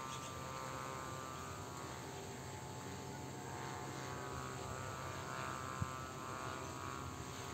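Steady low mechanical hum, like a distant engine drone, swelling a little now and then, with one sharp click a little before the end.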